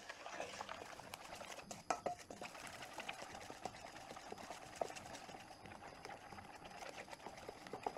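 Wooden spoon stirring a wet, sloppy wholemeal batter in a stainless steel bowl: continuous, rhythmic scraping against the bowl, with a few sharper clicks of the spoon on the steel about two and five seconds in.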